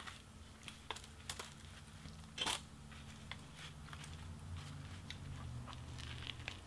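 Crusty baguette of a grilled-pork bánh mì crackling in the hands as it is gripped and lifted, then bitten into, with scattered small crunches and the loudest one about two and a half seconds in. A low steady hum underneath.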